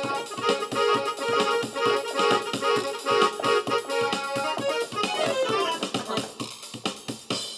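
Music with a steady beat and a sustained, reedy melody line; about five seconds in the melody plays a quick run of falling notes.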